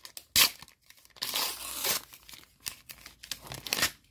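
A Panini Adrenalyn XL trading-card packet being torn open by hand: a sharp rip about half a second in, a longer stretch of tearing a second later, then scattered crinkling of the wrapper.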